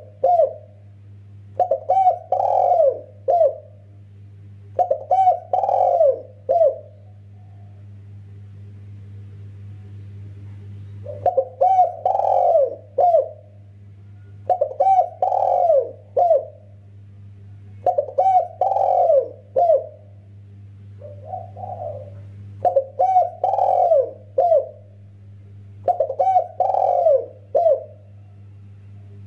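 Spotted dove (tekukur) cooing: about eight phrases of several mellow coo notes each, each phrase about two seconds long, with a pause of about four seconds after the first three. A steady low hum runs underneath.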